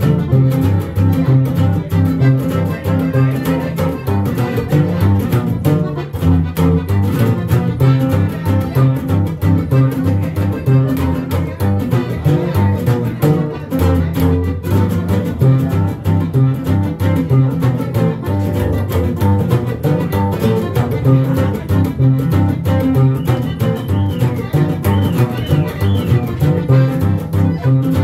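Live huapango played on upright double bass, acoustic guitar and accordion, the bass notes steady and prominent under the guitar strumming and accordion melody.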